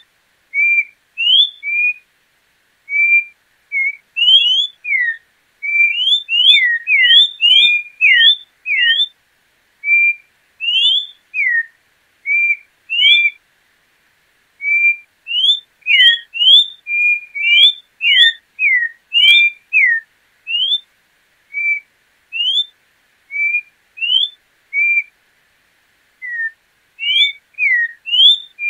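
Orange-backed troupial (João-pinto) singing: a long run of short, clear whistled notes, mixing upward and downward slurs at about one to two notes a second, with a couple of brief pauses.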